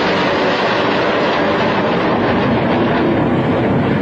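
Loud, steady running noise of a vehicle, an even rushing din with no clear pitch or rhythm.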